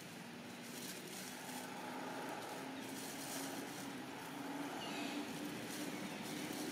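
Faint steady engine hum that rises slowly in pitch, over outdoor background noise.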